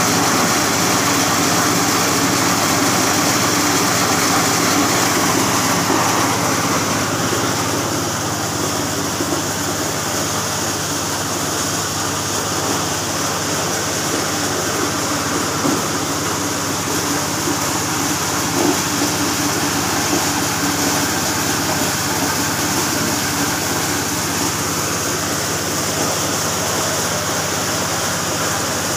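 Engine-driven corn sheller running steadily, a continuous mechanical drone of engine and shelling drum, a little quieter from about seven seconds in.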